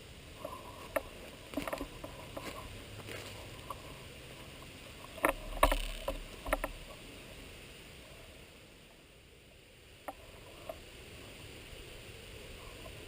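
Rustling and handling noise with scattered sharp clicks, and a cluster of several louder knocks and clicks about halfway through, typical of gear and rifle being handled close to the microphone.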